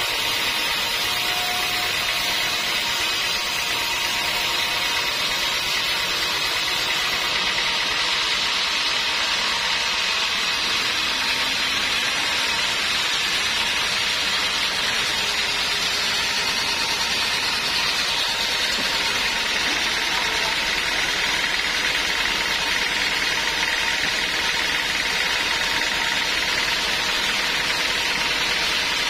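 Log band sawmill running: an even, unchanging machine noise with a faint steady whine.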